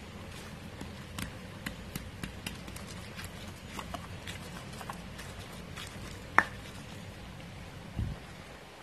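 Stone pestle (ulekan) grinding and crushing chillies, tomatoes and garlic in a stone mortar (cobek) for sambal terasi: a steady low grinding scrape with scattered small clicks of stone on stone. There is one sharp knock about six seconds in and a dull thump near the end.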